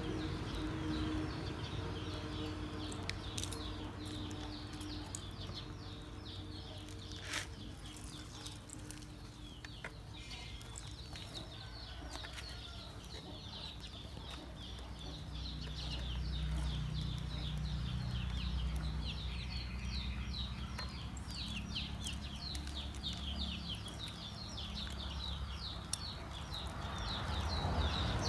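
Farmyard ambience: chickens clucking and a long run of rapid high chirps, with a few sharp clicks of dry wooden sticks being laid into a clay stove. A low rumble swells in the middle.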